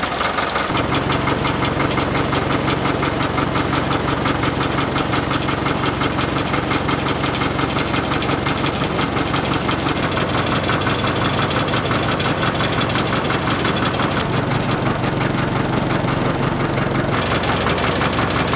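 Csepel D-352 fire truck's diesel engine idling steadily with a knocking beat, its sound changing abruptly a few times.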